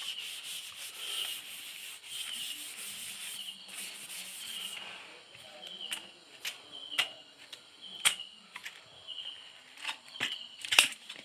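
Cloth wiping the face of an LCD backlight panel, rubbing in repeated strokes for about five seconds. Then comes a run of sharp clicks and knocks as the panel is handled and lifted, the loudest near the end.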